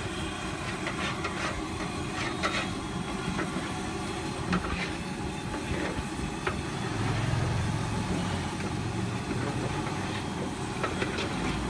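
Battered chicken leg pieces deep-frying in a kadai of hot oil: a steady sizzle with scattered pops and crackles. A low rumble swells about seven seconds in.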